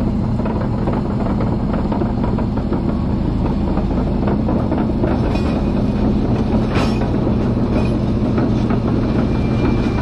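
Caterpillar D11 bulldozer's diesel engine running steadily as the machine travels, with the continuous clanking and rattling of its steel tracks.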